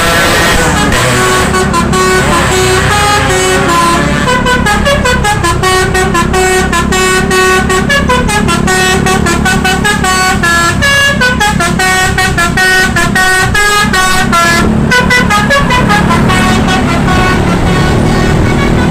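Bus 'telolet basuri' melodic horn playing a fast tune of short stepped notes, rising and falling several times a second, over the low running of the bus engine. Near the start a gliding, siren-like tone leads into the tune.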